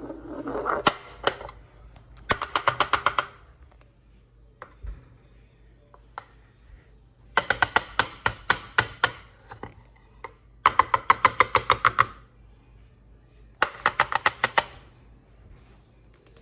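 Rapid, evenly spaced clicking in four short bursts, each lasting about a second, with quiet gaps between them.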